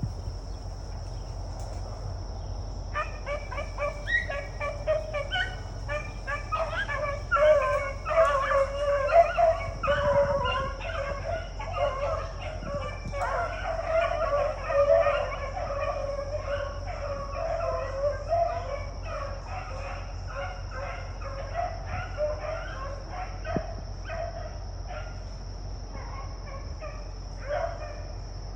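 Pack of beagles baying on a rabbit's track, several voices overlapping, starting about three seconds in and thinning out toward the end. A steady high insect drone runs underneath.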